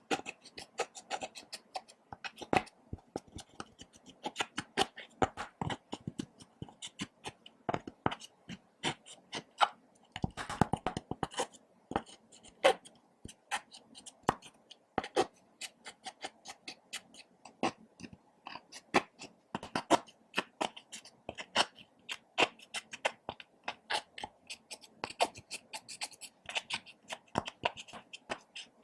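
Slime being kneaded and squished, giving a steady stream of irregular sticky clicks and pops. A quick run of pops comes about ten seconds in.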